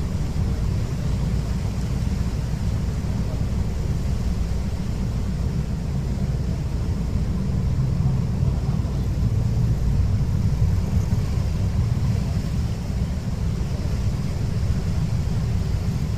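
Car ferry's engines running with a steady low drone, heard from the open stern deck over the churning wake, with wind buffeting the microphone.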